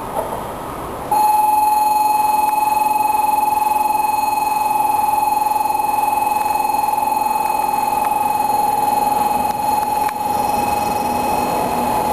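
Station platform train-approach warning buzzer: a single steady electronic tone that comes on abruptly about a second in and holds at an even level. A 700 series Shinkansen rumbles faintly underneath as it approaches.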